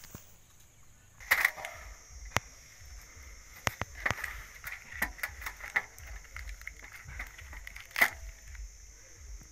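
Palmyra palm fruits being handled and set down on a stainless steel plate: a string of irregular knocks, each with a short metallic ring from the plate, the loudest about a second and a half in and again near the end.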